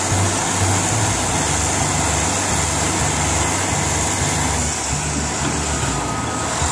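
Heavy diesel engines of large earthmoving machines, a wheeled Caterpillar machine and a crawler dozer, running steadily at a low, even note.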